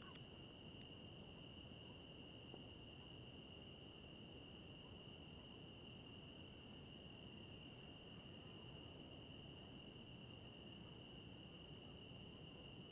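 Faint night insect chorus of crickets: one steady high trill, with fainter chirps repeating at an even pace above it.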